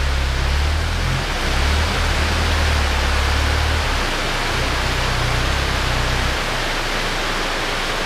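Heavy tropical rain pouring steadily in a dense, even hiss. Underneath it runs the low rumble of a pickup truck's engine, which stops about six seconds in.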